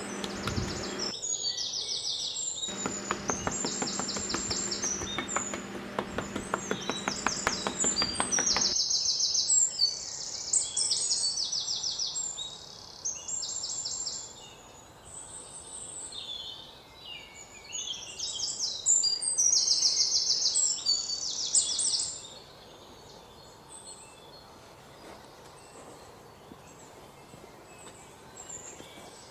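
Small birds chirping and singing in quick repeated high phrases, which stop about three-quarters of the way through and leave a faint steady background. Early on, a long low buzzy pitched sound lasts about six seconds under the birdsong.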